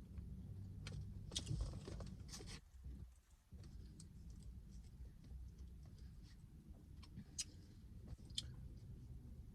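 A person chewing food, with a few scattered sharp mouth clicks, over a faint low hum.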